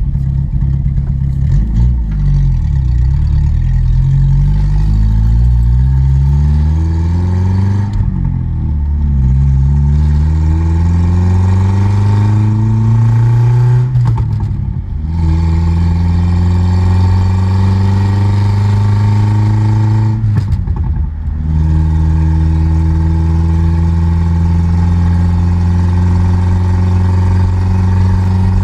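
1982 Datsun wagon's four-cylinder engine accelerating through the gears of its manual gearbox: revs climb, fall at gear changes about 8 and 14 seconds in, then the engine runs steadily at cruising speed, with another brief dip for a shift about 20 seconds in.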